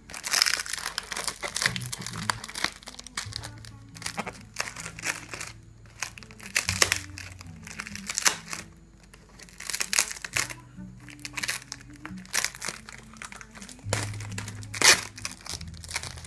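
Packaging being crinkled and handled in irregular bursts as the helmet's goggles are unwrapped, over quiet background music.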